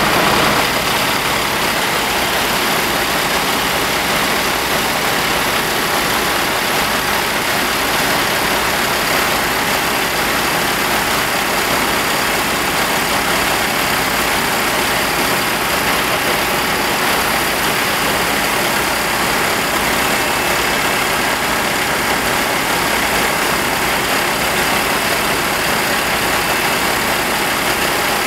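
Fire truck's diesel engine running steadily at the fireground, with a constant hiss over a low, even throb.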